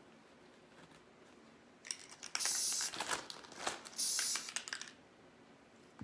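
Two short hissing blasts of Loctite spray adhesive from an aerosol can, about half a second each and a second and a half apart, with crackling rustles of dry moss being handled around them.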